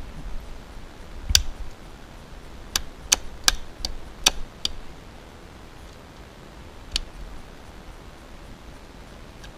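Wire cutters snipping the trimmed strand ends of 1/4-inch seven-strand EHS steel cable: about eight sharp clicks and snaps, most between one and five seconds in, and one more near seven seconds.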